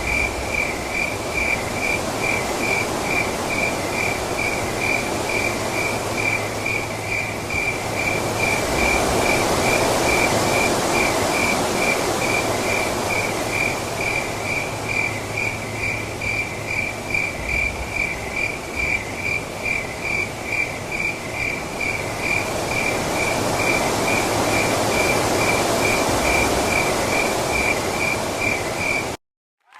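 A cricket chirping steadily in a fast, even rhythm over a rushing background noise that swells and fades.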